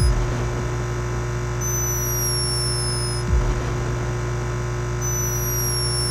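A sleeping hummingbird's 'snore': a thin, very high whistle that falls slightly in pitch and lasts about a second and a half. It comes twice, about three and a half seconds apart, with a short low puff after each. Under it runs a loud steady hum from the camera's microphone, turned up to high sensitivity.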